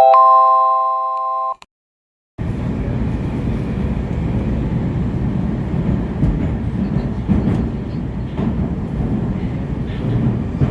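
A short jingle of several held tones lasts about a second and a half and then cuts off. After a brief gap, a Moscow Metro train runs with a steady low rumble and occasional faint clicks.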